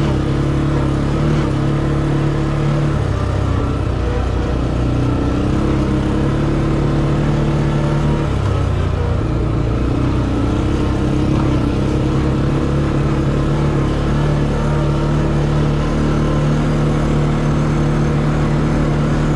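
CFMoto 450L ATV's single-cylinder engine running while riding, steady with its pitch dipping and picking up again around three and eight seconds in.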